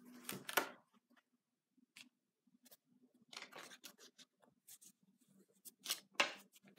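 Soft paper rustles and scrapes as a hand turns and smooths the pages of a spiral-bound sketchbook. A string of scattered rustles, the loudest a pair of them about six seconds in.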